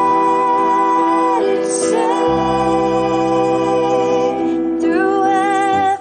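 Background song: a female voice holding long notes over a sustained backing, changing pitch twice.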